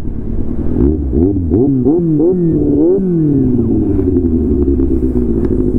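Kawasaki Z800's inline-four engine revved in several quick rises and drops, then the revs fall away steadily for the last few seconds.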